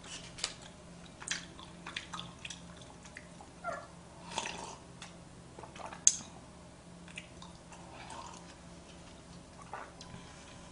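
Quiet small eating-table sounds: scattered soft clicks and mouth noises, with a sip from a paper cup around the middle and a sharp click just after, over a low steady hum.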